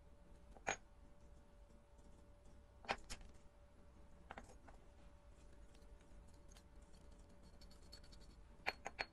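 Sparse, sharp little clicks and taps of small watch parts and broken crystal glass being handled on a hard work surface, with a quick run of three clicks near the end as tweezers pick at the watch case. A faint steady hum sits underneath.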